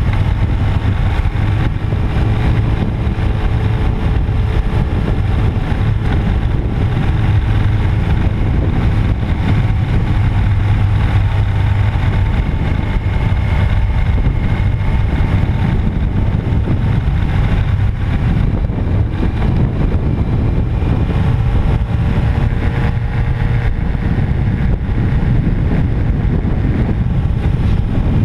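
Suzuki 750 Katana's inline-four engine running steadily at road speed, under heavy wind noise buffeting the microphone.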